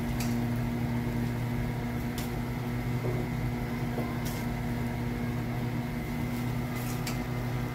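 Steady low mechanical hum of a small electric motor, with a few faint light ticks over it.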